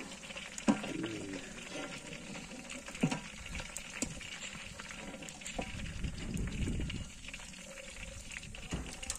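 Hot frying oil bubbling steadily in a large cauldron after deep-frying chicken pieces, with a metal skimmer clicking against the pot a few times as the last pieces are scooped out.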